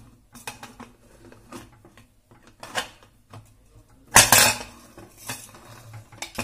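Aluminium Prestige pressure cooker lid being seated and twisted shut, with the whistle weight on: a run of metal clinks and scrapes, loudest about four seconds in.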